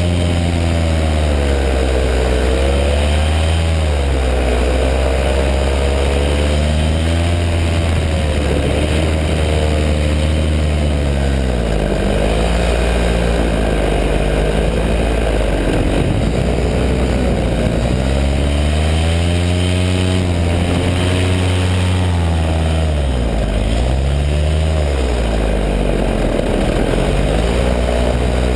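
Paramotor engine and propeller running loud and close, its pitch repeatedly rising and falling as the throttle is opened and eased.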